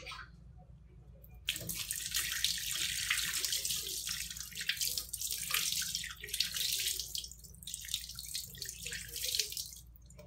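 Tap water running and splashing over a circuit board held in the hand, rinsing the water dispenser's switch-mode power supply board. The flow starts about a second and a half in and stops just before the end.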